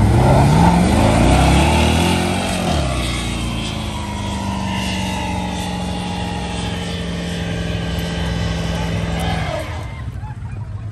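Square-body Chevrolet pickup's engine revved up hard and held at high revs through a burnout, with the rear tyres squealing. The revs climb over the first couple of seconds, stay high and steady, then drop off near the end.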